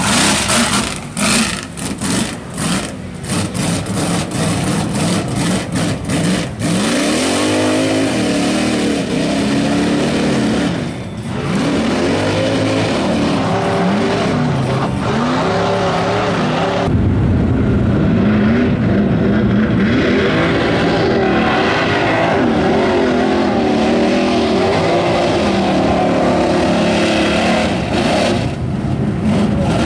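Lifted mud-bogging trucks' engines revving hard through a deep mud pit, the pitch rising and falling over and over as the throttle is worked. In the first several seconds, thrown mud splatters in sharp hits. About halfway through, a louder, deeper engine takes over.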